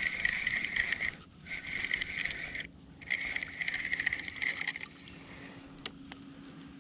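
Fishing reel cranked in three spells of a second or so each, a fast, even ticking whir, as a hooked fish is reeled in. After the reeling stops there are a few light clicks.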